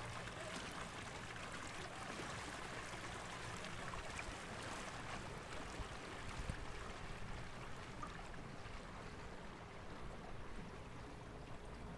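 Water washing and splashing along the hull of a small aluminium electric boat under way, a steady rush that eases a little near the end.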